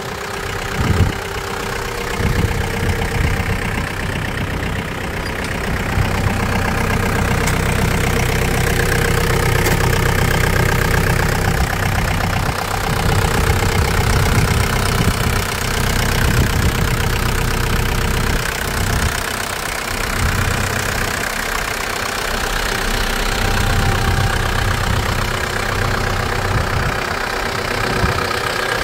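2011 John Deere 4720 tractor's turbocharged four-cylinder diesel engine idling steadily, heard up close with the hood raised.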